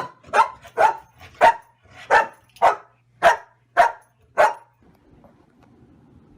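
A dog barking repeatedly: about nine loud barks, nearly two a second, stopping about four and a half seconds in.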